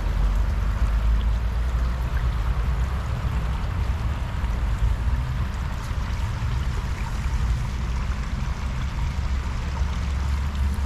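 Small, shallow brook flowing over a pebbly bed between grassy banks: a steady babble of running water, with a steady low rumble underneath.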